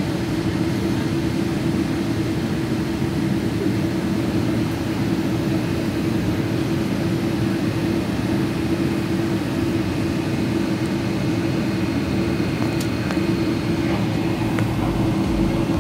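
Steady cabin noise inside a Boeing 777-200ER on the ground after landing: an even droning hum with one constant low tone, and a few faint clicks near the end.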